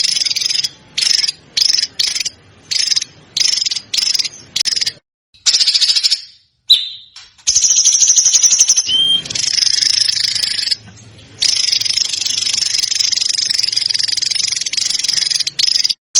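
Songbird song from a bird-training recording: very fast, dense trills, first in short bursts a little under twice a second, then as long unbroken trills several seconds each. A sharp click comes about seven seconds in, and a short rising whistle near nine seconds.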